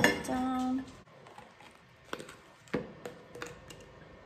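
Handling knock as a phone camera is turned to point down. Then about five light clicks and taps from things being handled on a plastic cutting board.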